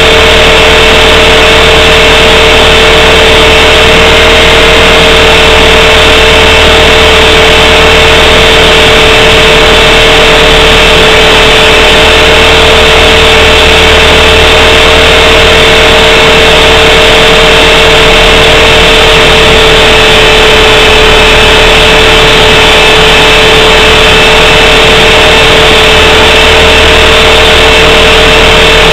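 450-size RC helicopter's motor and rotor whining steadily at a near-constant pitch, recorded from a camera strapped to the helicopter itself, so it is very loud and distorted.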